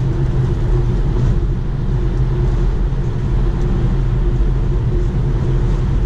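Steady low road and wind noise inside the cabin of a Tesla Model 3 at highway speed, about 65 mph, in strong gusty wind. The electric car has no engine note, only the rumble of tyres and air.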